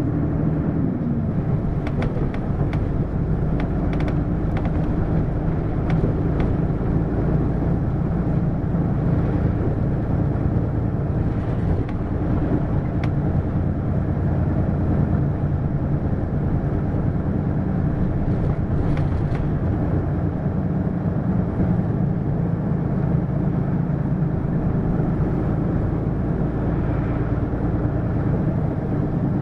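Hino LKG-KV234N3 city bus's diesel engine running steadily at an even speed, heard from on board, with a few faint clicks in the first several seconds.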